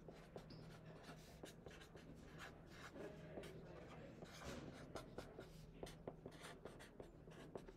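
Faint scratching of a pen writing on paper held on a clipboard, in short irregular strokes.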